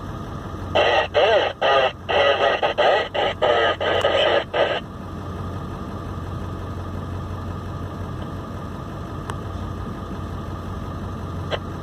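A voice from the car radio for about four seconds, then only the steady low hum of the idling vehicle, heard from inside the cabin.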